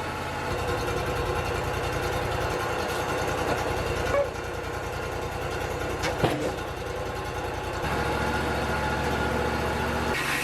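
Wood-Mizer LT35 portable sawmill's engine running steadily, its pitch shifting a few times, with a couple of short clanks about four and six seconds in.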